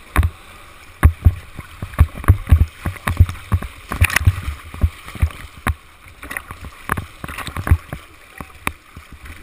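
Whitewater rapid rushing around a swimmer at water level, with a run of loud, deep thumps and splashes as waves slap against the camera, several a second, easing off in the second half.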